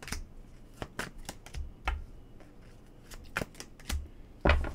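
A deck of tarot or oracle cards being shuffled and handled: irregular soft slaps and clicks of the cards, with a few dull thumps, the loudest near the end.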